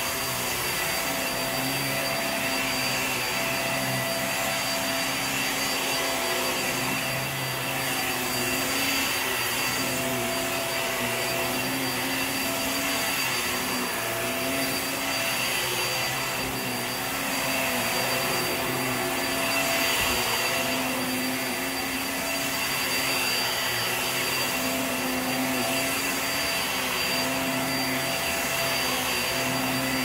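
Hoover React Powered Reach upright vacuum cleaner running steadily while pushed back and forth over carpet. A high motor whine and airflow hiss sit over a lower hum that wavers slightly with each stroke.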